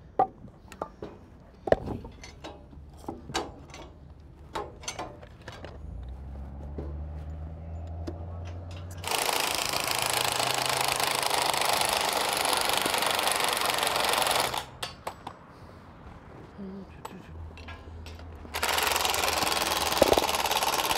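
Cordless impact wrench hammering on track fasteners in two long runs, the first about five seconds, the second about two and a half seconds near the end, each starting as a low motor hum before the rattle takes over. Scattered metal clinks and taps come in the first few seconds.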